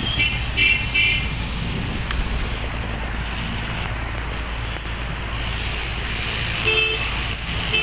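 Steady rumble and rushing noise of a just-landed military transport helicopter idling on the ground. Short car-horn toots sound about a second in and again near the end.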